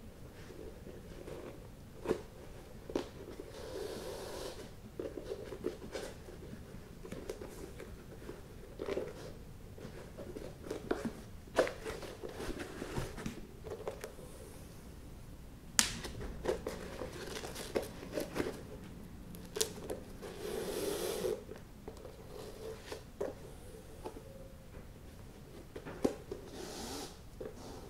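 Flat shoelace being pulled and threaded through the eyelets of a leather Nike Dunk High sneaker: soft rustling and scraping of lace on leather, with scattered sharp clicks.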